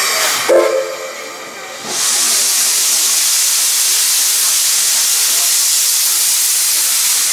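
Steam locomotive in Thomas the Tank Engine livery blowing steam from its cylinder drain cocks: a loud, steady hiss that starts about two seconds in and keeps going. Just before it comes a brief pitched sound about half a second in.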